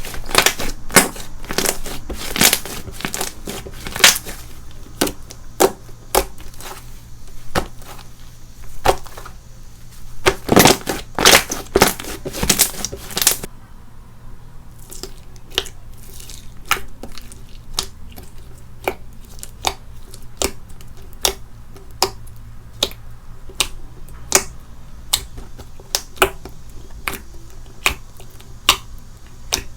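Slime being pressed and stretched by hand, making a dense run of crackling pops and clicks from air bubbles and crunchy bits. About halfway through it thins to a sparser string of single clicks.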